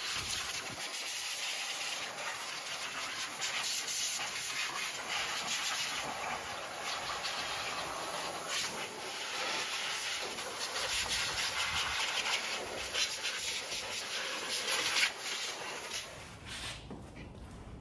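Scrubbing on the plastic engine-bay covers of a VW Passat B7 during cleaning: a raspy rubbing hiss in quick, irregular strokes that stops near the end.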